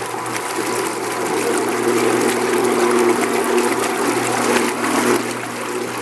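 Power Fist 4.5-inch mini angle grinder running fully submerged in a bucket of water, its spinning head churning and splashing the water like a pump. A steady motor hum runs under the splashing.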